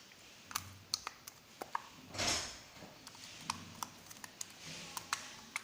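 Clear jelly slime being stretched and handled, giving irregular small clicks and pops, with one louder, longer rush of sound about two seconds in.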